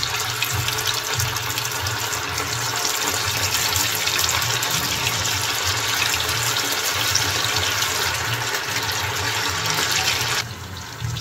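Marinated chicken 65 pieces deep-frying in hot oil in a kadai: a steady, dense sizzle full of fine crackles. It drops away abruptly shortly before the end.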